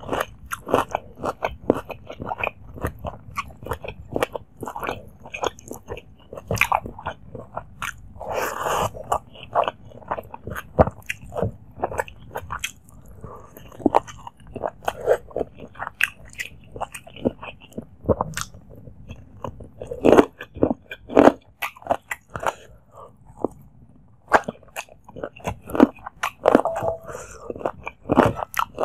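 Close-miked wet chewing and mouth smacking of rice and chicken curry eaten by hand, a dense run of small clicks throughout, along with fingers squishing curry-soaked rice on the plate.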